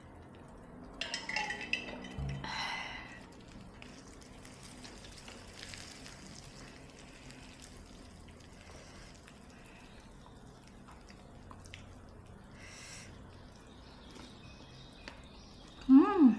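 Eating soup: a spoon clinks against the bowl a few times about a second in, with slurps of broth about 2.5 s in and again near 13 s. Near the end comes a short, loud vocal sound that falls in pitch, a reaction to the chilli heat.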